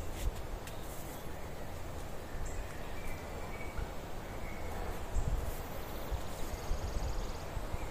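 Outdoor woodland ambience: wind rumbling on the microphone, with a few faint high chirps and trills and some light clicks and rustles.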